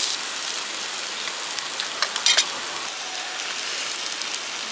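Pork sizzling on a tabletop barbecue grill: a steady crackling hiss, with a few light clicks about two seconds in.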